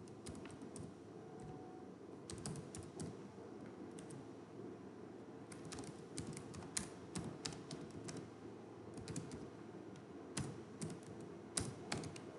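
Computer keyboard typing: irregular, faint key clicks in short runs, over a steady low background hum.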